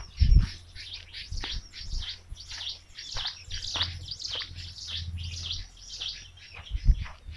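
Birds chirping busily, a dense run of short, quick, downward-sweeping calls several times a second. Two low thumps come through, one just after the start and one near the end.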